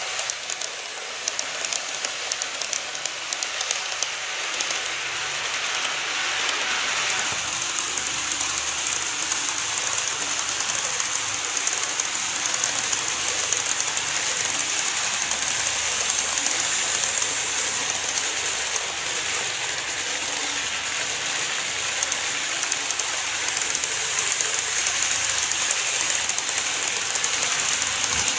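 N-gauge model trains running on the track: a steady high rolling hiss of small metal wheels on the rails with a rapid run of light clicks, busiest in the first few seconds.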